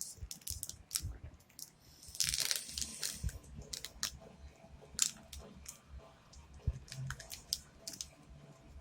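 Foil Pokémon booster pack being torn open by hand: crinkling and crackling of the wrapper with light clicks of cards being handled, and a longer tearing rasp a little over two seconds in.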